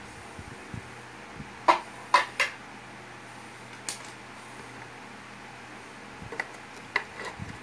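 Hard metallic clinks and taps from soldering work at a speaker's spring terminal cup: three sharp clinks in quick succession about two seconds in, one more shortly after, then a few lighter clicks near the end.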